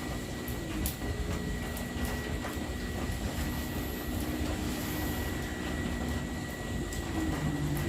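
Electric fan running: a steady rush of moving air over a low motor hum, with a thin steady high whine and a few light clicks.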